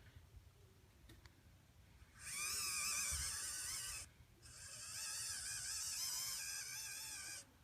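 Small electric motor on a radio-controlled Kyosho Blizzard snow tractor with a 3D-printed snowblower, whining at a high pitch. It runs in two spells, about two seconds and then about three seconds, with a short break between. Its pitch wavers as it runs.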